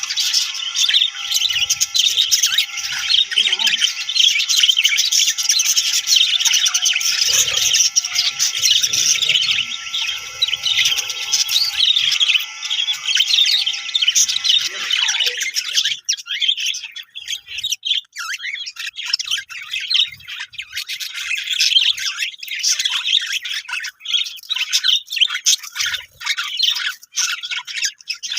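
Budgerigars chirping and chattering continuously in a dense, busy stream of quick high chirps. A steady hum underneath stops about halfway through, leaving the birds alone.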